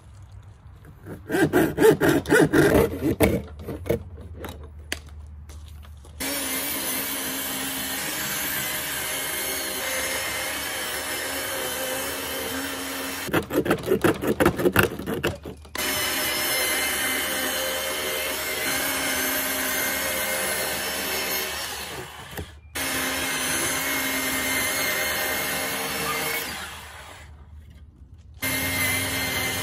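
A hand saw rasping back and forth through a plastic car dashboard in two short spells of quick strokes, which are the loudest sounds. In between, a portable bandsaw runs steadily as it cuts the plastic, starting and stopping abruptly several times.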